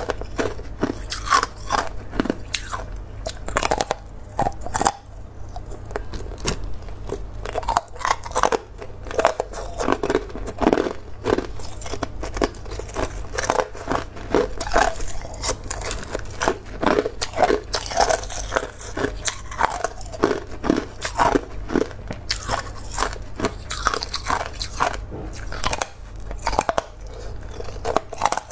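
Hard ice being bitten and chewed: a dense, irregular run of sharp crunches and cracks, close to the microphone.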